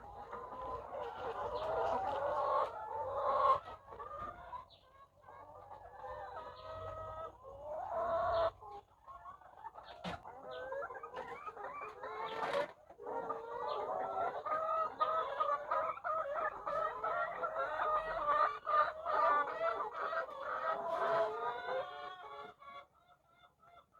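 Many laying hens clucking and calling together, a dense overlapping chorus, with a few sharp clicks.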